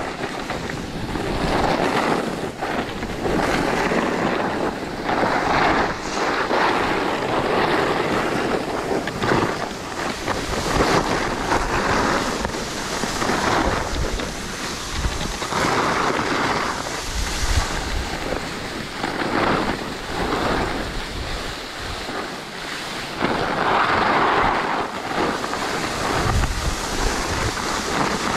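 Skis hissing and scraping over packed snow through a run of turns, the hiss swelling with each turn every couple of seconds, with wind rushing over the microphone.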